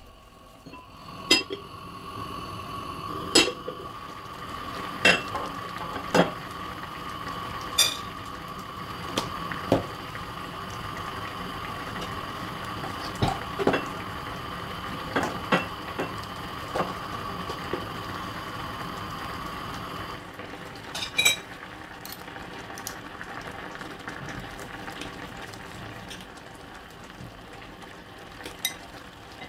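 Stew boiling in a glass pot on a gas burner, with a steady whine that stops about twenty seconds in. Over it come a dozen or so sharp clinks and knocks of kitchenware and a metal spoon.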